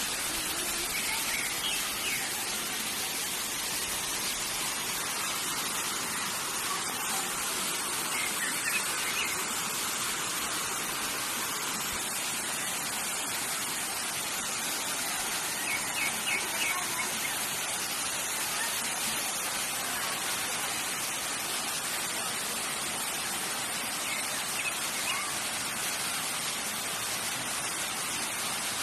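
Waterfall and stream water rushing, a steady hiss, with the flow running high. A few brief chirps come through now and then.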